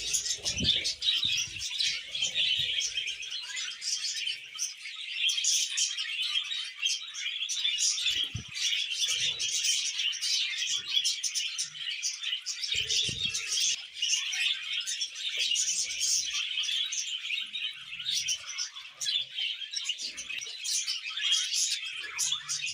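Budgerigars chattering non-stop, a busy stream of warbling and chirps, with a few soft low thumps in between.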